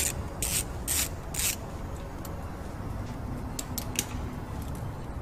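Hands working on a car's front strut and suspension: four short rasping strokes about half a second apart, then a few light clicks.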